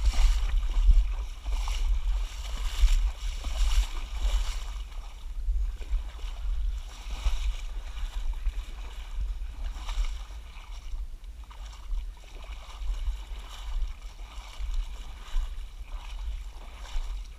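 Shallow seawater splashing and sloshing around a person's legs as they wade, in repeated short washes that come about once a second at first and further apart later. A steady low rumble sits on the microphone throughout.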